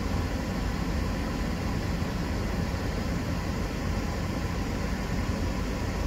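Steady cabin sound of a Mazda CX-30 idling at a standstill with the air conditioning running: a low engine hum under the even sound of air blowing from the vents.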